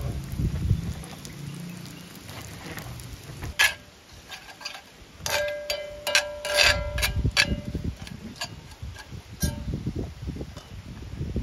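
Camp cookware and utensils clinking and knocking, a cluster of hard taps in the middle with a few ringing briefly, over a low rumble that comes and goes.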